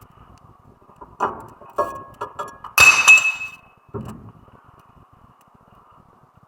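Metal objects clinking and clanking: a few light clinks, then a louder clank that rings on briefly about three seconds in, and a duller knock a second later.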